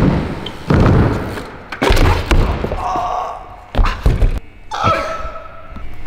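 Dirt jump bike's tyres and frame landing on plywood ramps: a series of heavy thuds and knocks, each dying away in an echo.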